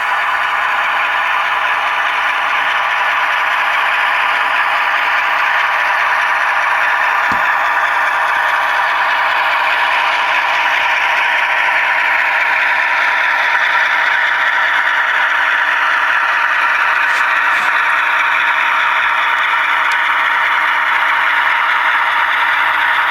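HO scale GE ES44AC diesel locomotive model running at speed step 8. Its onboard sound plays the diesel engine through the model's small speaker, steady and thin, mixed with the rattle of the model's wheels on the track.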